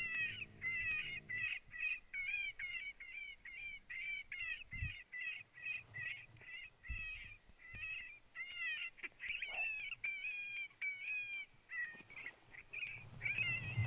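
Electronic predator caller playing coyote pup yips: a rapid string of short, high yelps, about three a second, used to draw a coyote in.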